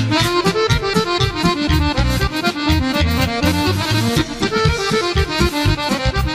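Live accordion-led band with keyboard playing an instrumental passage between the verses of a Serbian folk song, over a steady beat.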